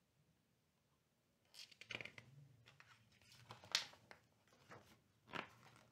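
Faint paper rustling and crinkling as a picture book's page is handled and turned, in a few short scrapes starting about a second and a half in, with one more near the end.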